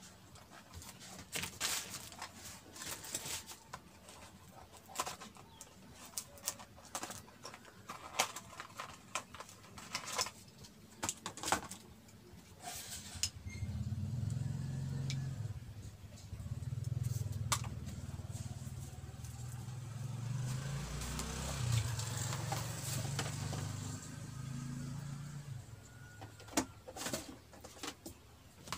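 Scattered clicks, taps and plastic rustling of packaging and keyboard parts being handled. From about thirteen seconds in, a low rumble runs for some twelve seconds and is the loudest sound, with the clicks starting again near the end.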